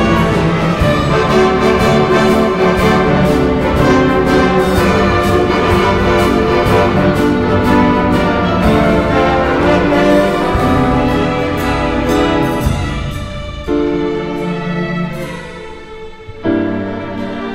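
Full orchestra with brass, woodwinds and strings playing loudly. About three-quarters of the way through it drops suddenly to a quieter, sparser passage.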